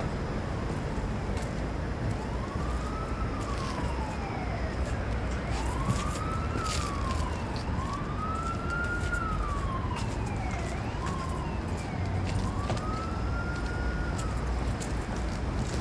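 Emergency vehicle siren wailing, its pitch rising and falling in slow sweeps about five times, over a steady low background rumble.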